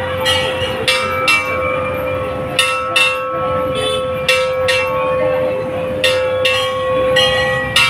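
Metal temple bell struck again and again, often two strikes close together, each strike ringing briefly, over a steady hum.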